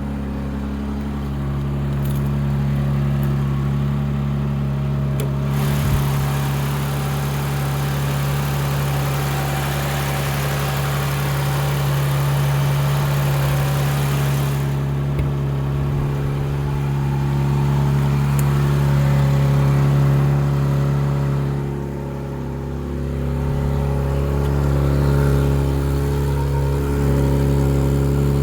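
2019 Chrysler Pacifica Hybrid minivan giving off a steady low hum made of several held tones, an odd noise its owner finds unusual. A broader rushing noise rises over the hum from about five seconds in and drops away about fifteen seconds in.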